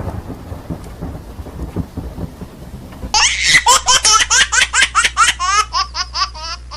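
Thunderstorm sound effect, low rumbling thunder with rain, for about three seconds. It is cut off abruptly by a high-pitched run of laughter, about five quick 'ha's a second, each falling in pitch.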